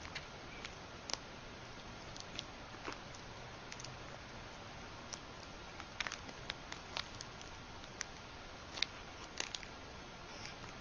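Light, irregular clicks and rattles as a kitten bats and bites at a dangling metal bead chain, over a steady hiss. The clicks come in small clusters, thickest in the second half.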